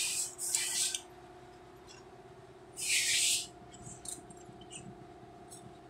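Two short hisses, one ending about a second in and another about three seconds in, over a faint steady hum.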